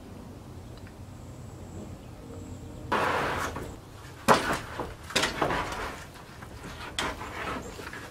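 Rough-sawn wooden boards sliding off a stack and knocking together as they are pulled out and lifted: a long scrape about three seconds in, then several sharp wooden knocks and scrapes.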